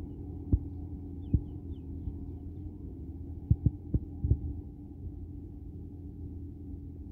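Tractor engine running steadily at a distance as it pulls a rotary tiller through a wet paddy field, a low hum with a held tone. Several sharp low thumps break in, one about half a second in, another near a second and a half, and a quick cluster around the middle.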